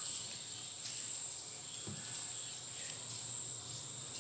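Crickets chirring steadily, a continuous high-pitched trill.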